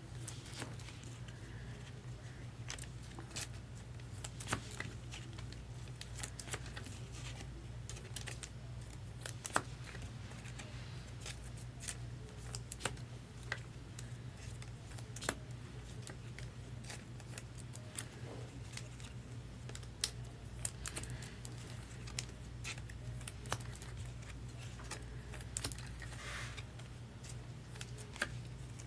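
Scattered light clicks and taps of baseball cards and their holders being handled, shuffled and set down on a table, a few irregular ticks a second over a steady low hum.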